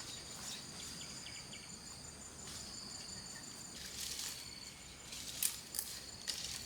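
Insects trilling steadily in a high, pulsing drone, with scattered light rustles and clicks, a few louder ones near the end.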